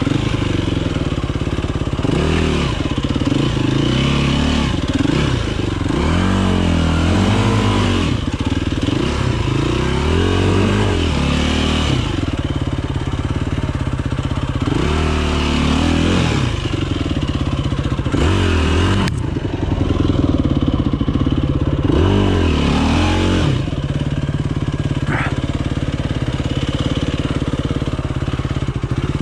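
Yamaha enduro dirt bike's engine being ridden hard, revving up and dropping back again and again through throttle changes, with a short steadier stretch a little past the middle.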